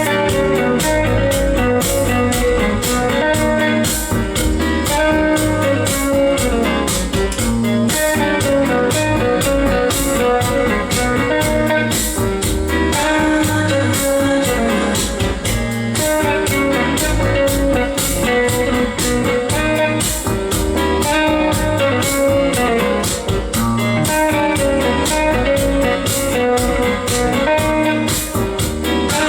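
Guitar-led recorded music with a steady beat, played through a repaired Behringer NU3000 power amplifier and speakers as a listening test that the amplifier works.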